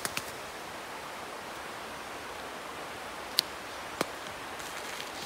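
Steady rushing hiss of a river heard from a snowy campsite. A few sharp clicks break through it: two at the start, then two more about three and a half and four seconds in.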